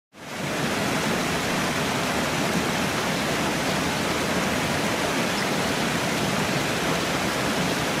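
Waterfall: a steady rush of falling water. It fades in quickly at the start, then holds even.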